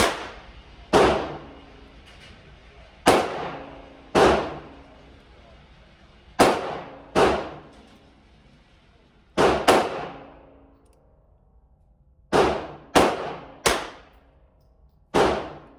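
Gunshots echoing in an indoor shooting range: about a dozen sharp reports at irregular intervals, some coming in quick pairs and triplets, each with a ringing tail.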